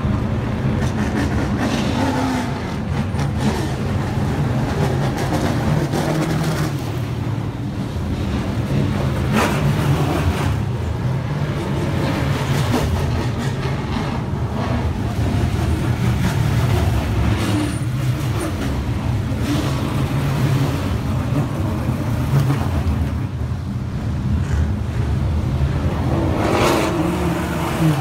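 Trans Am race cars' V8 engines running at low speed as the cars creep along the pit lane, a deep steady burble with the throttle blipped now and then, rising briefly near the end.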